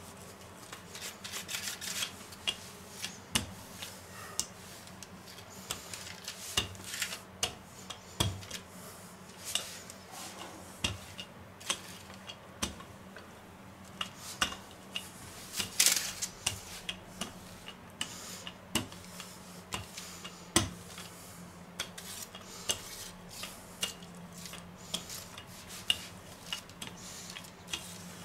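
Wooden handled rolling pin rolling out pastry dough on parchment over a silicone baking mat: a long run of irregular light clicks and knocks, with the loudest knock about 16 seconds in.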